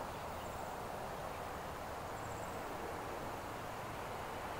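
Steady rushing outdoor background noise with no distinct events, and faint short high chirps twice.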